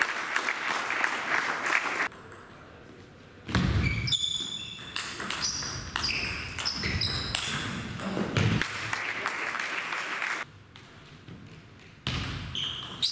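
Table tennis rally in a large hall: the celluloid ball knocking off bats and table, and shoes squeaking sharply on the sports floor. Twice the play goes quiet for a second or two.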